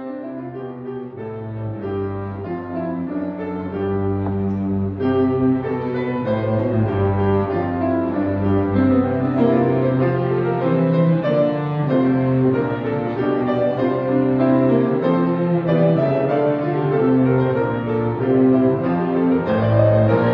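Small instrumental ensemble playing: bowed strings with piano, the cello and double bass lines prominent. The music starts abruptly and grows louder over the first few seconds, then carries on steadily.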